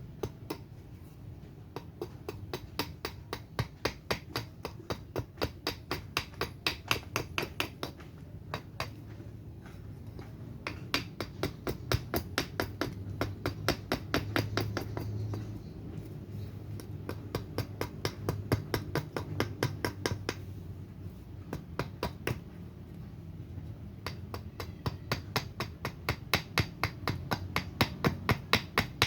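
Axe chopping a surian-wood spoon blank, roughing out its shape: quick, even strokes about two to three a second, broken by a few short pauses.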